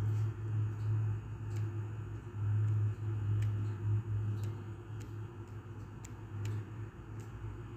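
Scattered faint ticks of a number being typed on a smartphone's on-screen keyboard, over a steady low hum.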